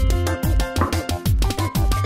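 Background music with a quick, steady beat: percussive hits over bouncy low notes that drop in pitch, and a plucked melody on top.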